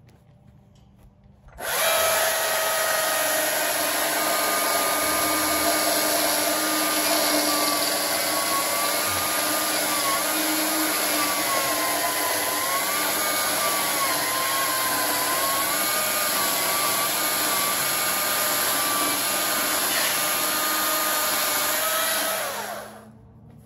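Battery-powered Stihl chainsaw cutting along a fallen log: the motor starts abruptly from silence with no idle, runs at a steady whine whose pitch wavers and dips under load, then winds down with a falling pitch near the end.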